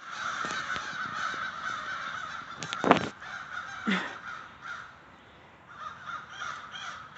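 A flock of crows cawing over and over, with a sharp knock about three seconds in.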